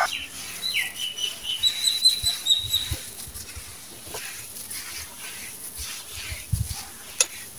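Hands scooping, squeezing and crumbling a damp sand-and-cement mix, giving soft gritty crunches and crumbles. A bird chirps a short run of high notes about a second in.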